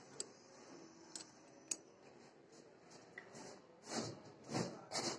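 Light metal clinks and scrapes from a Swaraj tractor engine's main bearing cap and its bearing shell as they are handled and set onto the crankshaft journal. There are a few sharp clicks in the first two seconds, then three louder rubbing scrapes near the end.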